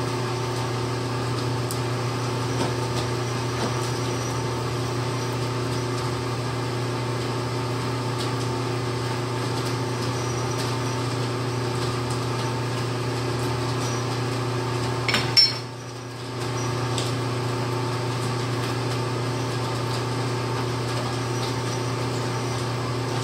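Steady machine hum of running shop equipment, with faint metal clicks as a tap is turned by hand with a tap handle. About fifteen seconds in, a click sounds and the hum briefly drops, then comes back.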